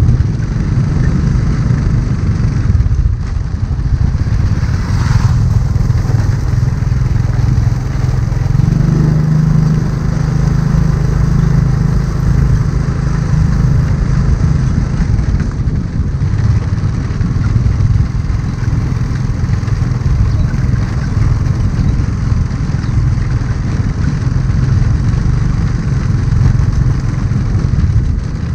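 Small motorcycle engine running as the bike rides along, mixed with wind rumble on the microphone. The engine's note stands out more clearly from about eight seconds in for several seconds.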